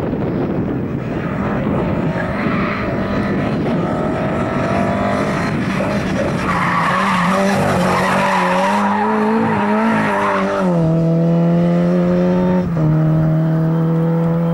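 Lada saloon rally car's four-cylinder engine revving hard as it slides through a turn on concrete, its tyres squealing for a few seconds in the middle. It then accelerates away, with upshifts near the end.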